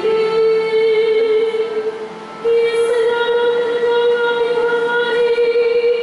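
A woman's solo voice singing long, steadily held notes into a microphone, like a cantor chanting at the ambo. There is a short break about two seconds in before the next long note.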